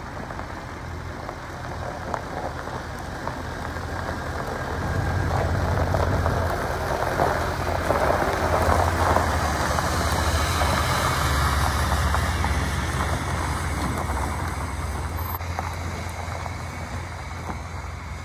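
GMC pickup truck's engine running as it pulls a boat on its trailer slowly past, its tyres crunching over gravel. It grows louder as the truck passes close, about halfway through, then fades as it pulls away.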